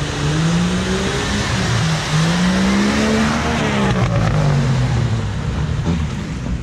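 Off-road vehicle engine revving up and down several times under load, its pitch rising and falling over a rough, noisy background.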